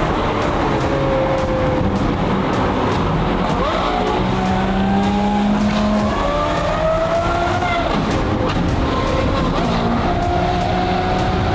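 Lamborghini Aventador SVJ's V12 engine running under way, with heavy road and tyre noise. Its pitch shifts up and down a few times about halfway through.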